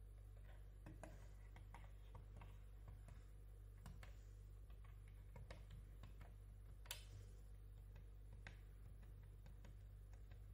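Faint, irregular clicks of push buttons being pressed one after another on a small IP relay control box, over a steady low electrical hum; one sharper click about seven seconds in.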